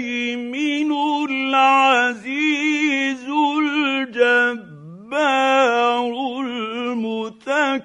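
Man chanting Quranic Arabic in melodic tajweed recitation, holding long ornamented notes that bend up and down, with a few short breaks.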